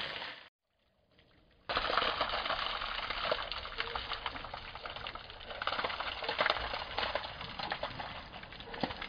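Water poured by hand over a bicycle, splashing and pattering on the frame, saddle, wheel and wet concrete, with many small droplet clicks. It starts about two seconds in.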